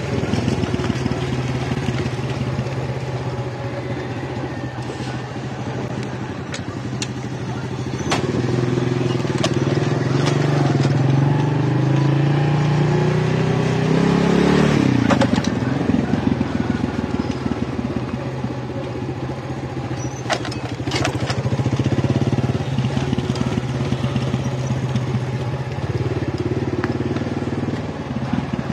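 Motorcycle engine running as the bike rides along, its pitch climbing and then dropping sharply about halfway through, with a few sharp knocks.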